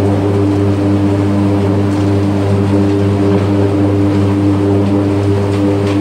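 Electric arc furnace running, its graphite electrodes arcing: a loud, steady low hum with a stack of higher steady tones, over a rough crackling noise.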